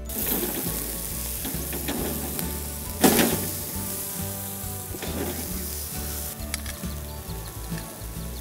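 Goat leg sizzling on a charcoal grill as it is turned and basted with oil, with a louder burst of hissing about three seconds in. Background music plays underneath.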